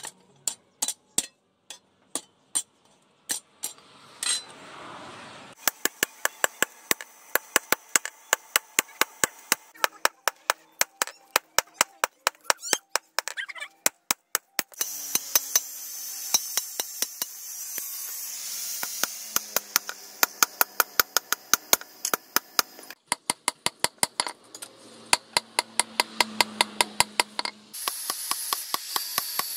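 Hand hammer striking a hot steel lawnmower blade on a steel post anvil: rapid ringing blows, about three a second, with a few short pauses. A steady hiss runs underneath during the second half.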